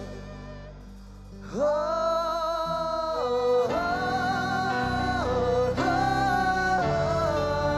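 Live pop concert music: after a dip in the first second or so, male singers hold three long wordless 'ah' notes, each about a second and a half, over the band.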